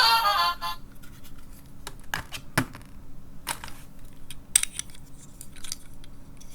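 A short electronic tune breaks off under a second in. Then come scattered clicks and scrapes of small plastic toy parts being handled and snapped.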